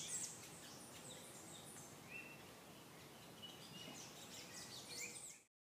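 Faint wild birds chirping and calling, many short quick falling chirps with a few brief whistled notes, over a steady outdoor hiss. The sound cuts off suddenly near the end.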